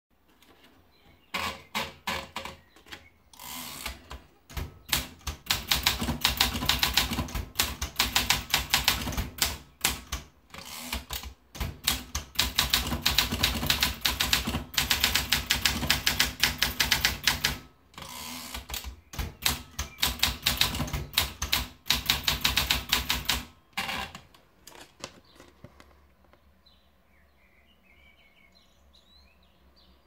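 Olympia SM8 manual portable typewriter: a few clicks as the paper is wound in, then fast typing in three runs of rapid keystrokes, one for each typed line, with short breaks between them. The typing stops about 24 seconds in.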